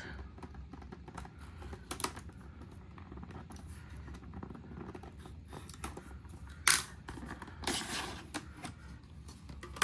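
Hands opening blind-box toy packaging: scattered small clicks and taps, a sharp snap about two-thirds of the way in, and then a short crinkling rustle of the wrapping.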